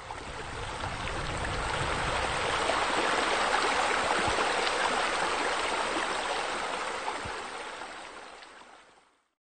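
Water from a pool's water features splashing steadily, fading in at the start and fading out near the end.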